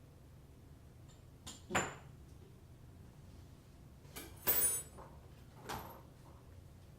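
Faucet parts and packaging being handled: four short knocks and clatters, the loudest a half-second rattling scrape about four and a half seconds in.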